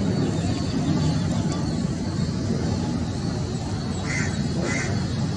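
Jet airliner on landing approach, a steady low rumble of its engines. Two short higher-pitched calls come about four and four and a half seconds in.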